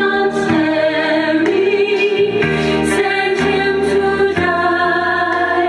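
A Christian hymn sung by a choir, played from a phone over Bluetooth through a Rockville RPG152K 15-inch PA speaker.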